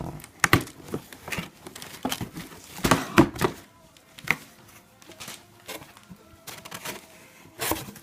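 Gift wrap crinkling and rustling, with scattered sharp clicks and knocks, as a dog works at an opened present.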